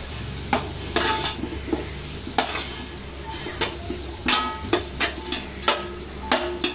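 Metal slotted spoon scraping and knocking against a large aluminium pot as vegetables are stirred, about a dozen irregular clanks with a short metallic ring, over a faint sizzle of the vegetables frying in oil.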